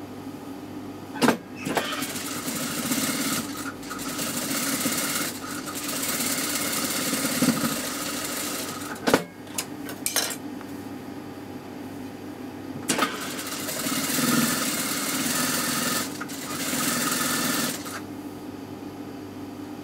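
Industrial lockstitch sewing machine stitching a seam through cotton fabric in two runs, about seven seconds and then about five seconds long, with a pause between them. Sharp clicks come where the stitching starts and stops.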